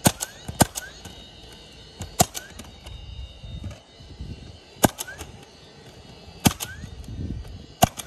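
Nail gun firing nails through asphalt shingles, six sharp shots spaced about one and a half seconds apart, each followed at once by a softer click.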